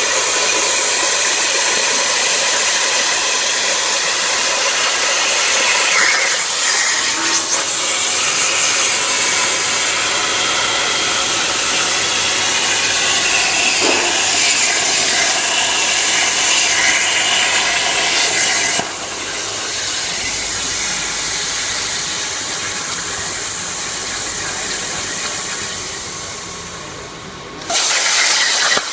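CNC plasma torch cutting, a loud steady hiss of the arc and its gas jet. It drops to a quieter hiss about two-thirds of the way through, fades lower, then comes back loud shortly before the end.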